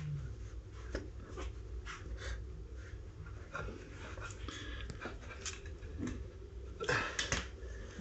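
Cloth towel rustling and rubbing as hands press a hot solid rubber tyre onto a scooter wheel rim, a run of irregular soft scuffs with a cluster of louder ones about seven seconds in.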